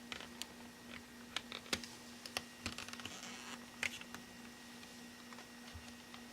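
Scattered light plastic clicks and taps, about a dozen at uneven intervals, from the phone's plastic housing and clips being handled and worked loose during disassembly. A steady low hum runs underneath.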